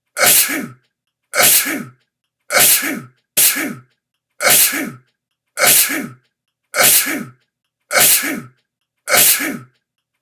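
A person sneezing over and over: about nine sharp "achoo" sneezes at roughly one a second, each alike, with dead silence between them.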